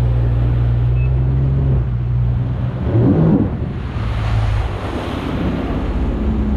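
Jet ski engine running steadily under way, with water spray and wind noise on the microphone. A brief rise and fall in pitch about three seconds in.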